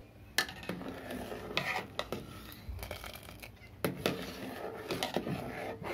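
A steel lid taken off a steel pot and a steel spoon stirring milk in it: scraping, with a string of sharp metal clinks and knocks.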